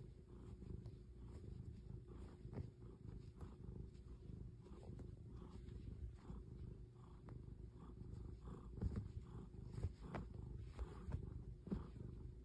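Domestic cat purring: a faint, steady low rumble, with a few soft clicks over it.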